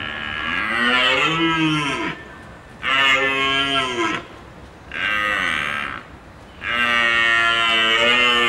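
A large hoofed animal giving four long, deep, moo-like calls, each rising and then falling in pitch, with short pauses between them.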